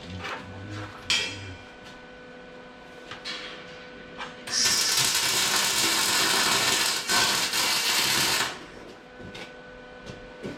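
Electric arc welding on a steel-bar frame: a sharp metal clank about a second in, then a loud, even crackling burn of about four seconds, briefly broken near the end, as a joint is welded.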